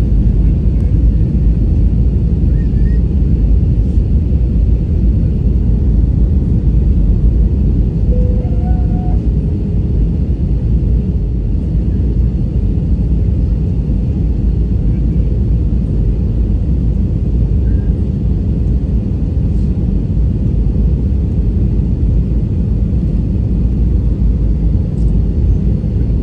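Airliner cabin noise on descent: the steady, loud rumble of the jet engines and rushing airflow heard from a window seat.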